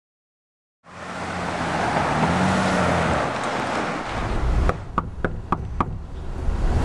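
A car driving past with road noise, swelling and then fading, followed by five quick knocks on a wooden front door, about four a second.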